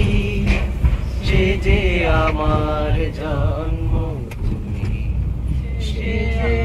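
Singing, a slow melody of long held, gliding notes, over the steady low rumble of a Toyota van's engine and tyres on the road.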